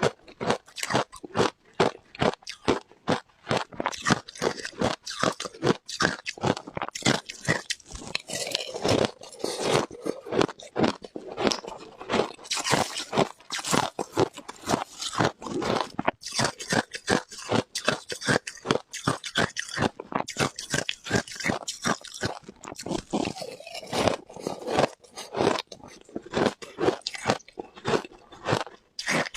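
Ice being bitten and chewed close to the microphone: a continuous run of crisp crunches, several a second.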